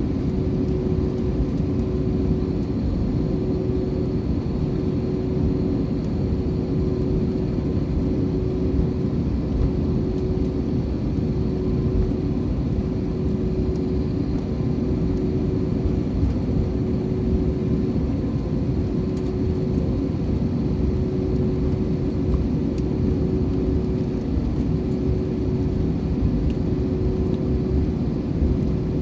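Airliner jet engines and airflow heard from inside the passenger cabin during takeoff: a loud, steady low rumble with a constant hum.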